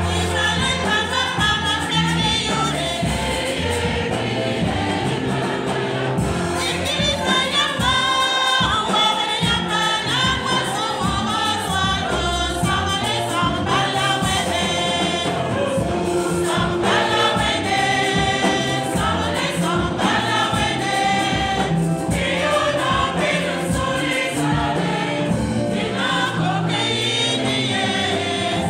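A large church congregation singing a hymn together, loud and steady throughout.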